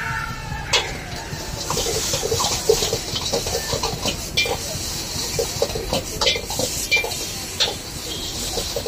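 Gobi fried rice sizzling in a wok, with a metal ladle scraping and knocking against the wok many times as the rice is stirred.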